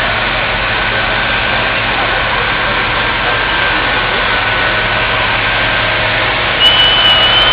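Pulling tractor's engine running steadily at idle. About six and a half seconds in, it gets louder and a high, steady whine comes in.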